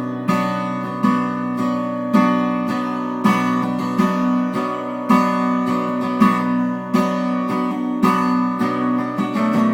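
Acoustic guitar strumming chords, about one strum a second, in an instrumental break between sung lines of a song.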